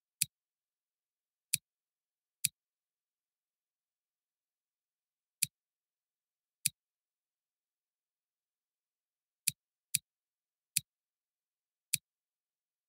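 Computer mouse clicks: nine single sharp clicks at irregular spacing, two of them close together near the middle-to-late part, with dead silence between.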